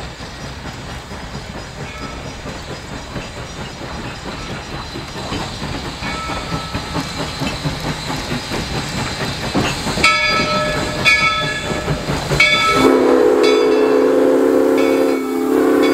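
Steam locomotive No. 97 approaching, its running noise and hiss growing louder, then a few short ringing notes about once a second, then its steam whistle blowing one long chord that breaks briefly near the end.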